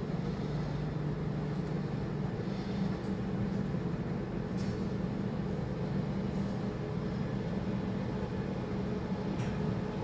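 Steady low mechanical hum of a tower crane's machinery, heard from inside its cab.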